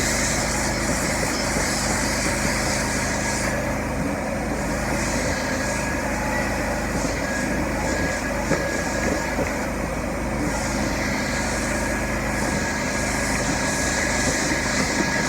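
Hot water carpet extraction machine running steadily, with a high hiss of the spray and suction that cuts out for several seconds in the middle and then returns.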